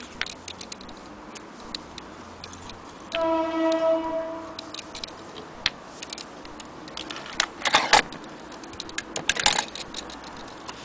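Junghans mechanical wall clock ticking, striking once about three seconds in with a single ringing tone that fades over about two seconds. Louder clicks and rattles follow near the end.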